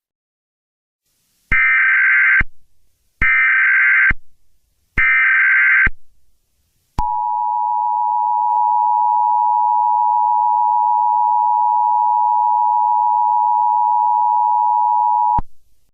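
Emergency Alert System tones: three bursts of about a second each of warbling SAME header data, then the two-tone attention signal (853 and 960 Hz) held steady for about eight seconds before cutting off sharply.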